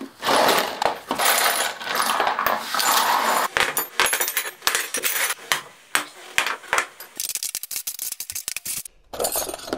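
Steel sockets and spanners clattering and clinking against each other and the tabletop: a dense rattle for the first few seconds, then separate clinks, and a fast run of clicks near the end.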